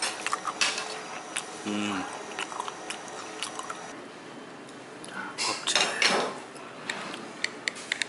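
Metal chopsticks and dishes clicking and clinking on a restaurant table in short sharp taps, with a louder rustling clatter around six seconds in.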